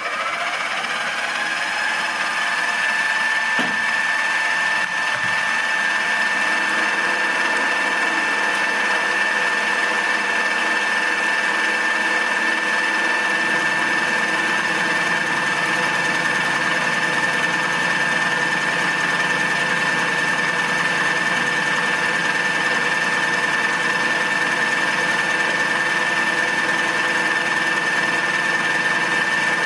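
Machine motor spinning up and then running steadily with a high whine, driving a fly cutter that squares the side of a metal workpiece. About halfway through the sound gets fuller and deeper.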